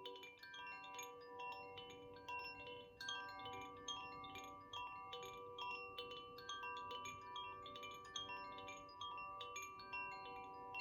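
Ignis koshi chime being played, its tuned metal rods struck again and again by the clapper inside, several strikes a second. Bright tones ring on and overlap into a shimmering wash.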